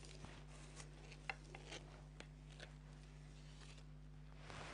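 Faint, light scrapes and taps of a spatula spreading whipped cream onto the side of a sponge cake, a few soft clicks spread through, over a low steady electrical hum.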